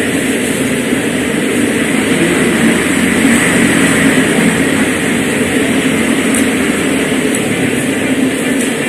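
Steady, loud background noise in an eatery, a constant low hum with hiss over it, and a few faint clicks in the last few seconds.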